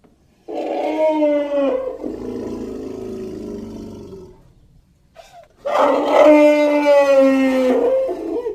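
Elephant trumpeting twice: a loud call of about a second and a half that trails off into a quieter, rougher sound for another two seconds, then a second trumpet of about two and a half seconds, each held at a steady pitch that drops slightly at the end.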